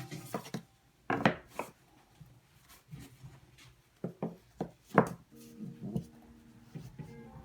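Irregular sharp knocks and clacks of hard acrylic pieces being handled and set down on a router table, loudest about a second in and again at five seconds; the router is not running.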